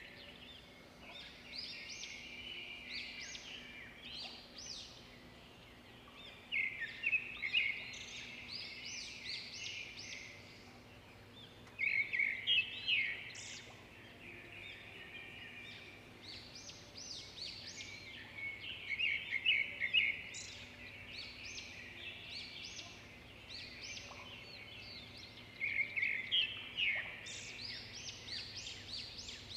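Birds calling: a loud run of quick, chattering notes comes about every six or seven seconds, with quieter birdsong in between.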